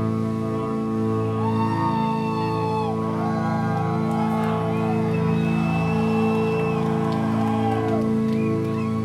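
Instrumental post-metal band playing live: electric guitars sustaining ringing chords under a slow melodic lead line whose notes slide into and out of pitch.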